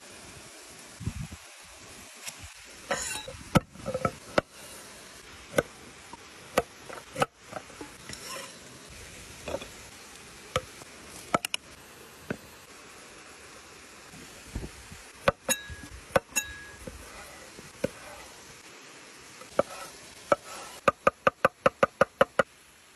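Broad kitchen knife cutting food on a wooden board: scattered single knocks and slices, then a fast run of chops, about six a second, near the end. A steady hiss of running water sits underneath.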